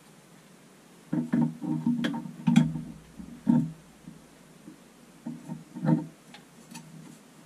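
Channel-lock pliers knocking and grinding against a metal shower arm while wrenching off a stuck shower head: a run of sharp clanks with a short ringing tone, from about a second in until about six seconds in.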